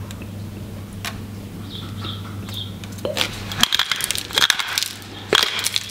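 Pepper mill grinding in rapid clicks from about three seconds in, over a steady low hum that stops soon after.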